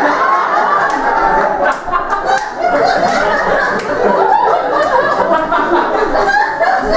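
Audience laughing loudly and continuously.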